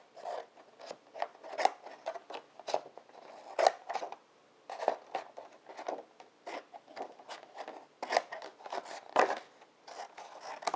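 Scissors cutting through poster board in a run of short snips, about two or three a second, with a brief pause about four seconds in.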